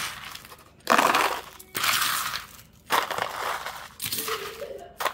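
Metal spoon scraping and scooping sugar-coated candied pecans off a parchment-lined sheet pan into a small plastic container, the nuts rattling. There are about five scoops, roughly a second apart.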